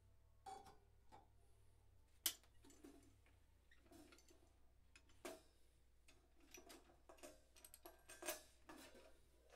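Faint, irregular clicks and knocks of a cymbal and its metal stand being handled and adjusted, with one sharper click a little over two seconds in. A low steady hum sits underneath.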